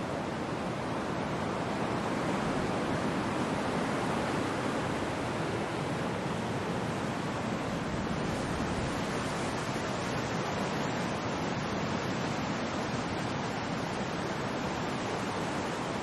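Ocean surf breaking and washing ashore: a steady rushing wash of waves that swells slightly a few seconds in.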